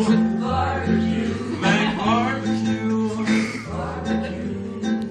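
Acoustic guitar music: slow strummed chords, each held for about a second before changing.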